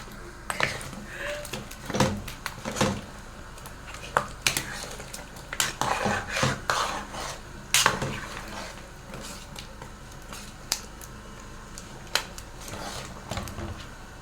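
A spoon scraping and knocking against a cooking pot while stirring thick ogbono soup, with irregular clinks and scrapes and a few sharper knocks.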